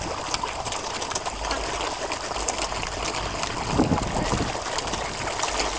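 Many large fish churning and splashing at the water's surface, a continuous spattering of many small splashes as they crowd for food, with a louder burst about four seconds in.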